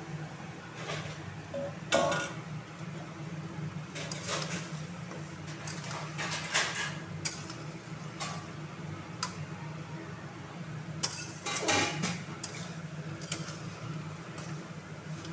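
Vegetable pieces tipped from a steel bowl into an aluminium kadai, then a spatula stirring them, scraping and knocking against the pan in irregular strokes, the loudest about two seconds in and near twelve seconds. A steady low hum runs underneath.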